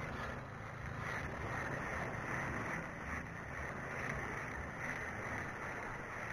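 Steady wind rumble on the microphone outdoors by open water, with no distinct events.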